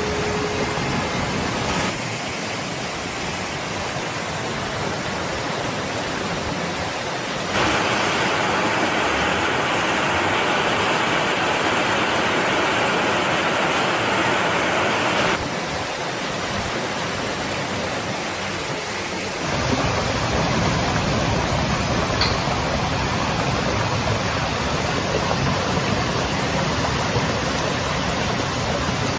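Rushing floodwater: a steady roar of fast-flowing muddy water surging down a town street. The sound changes abruptly several times where separate clips are spliced together.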